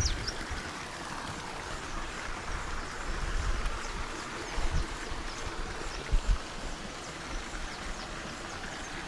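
Steady rushing of water with a few low bumps against the microphone, and faint high bird chirps.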